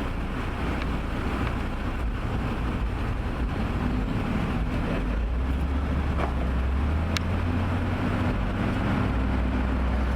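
A vehicle engine idling close by: a steady low hum that gets stronger about halfway through, with a single sharp click near the end.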